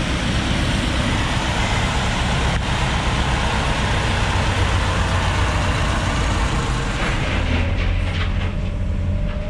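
Volvo EWR150E wheeled excavator's diesel engine and hydraulics running steadily under load. The low engine drone swells a couple of times, and a faint whine rises slightly near the end.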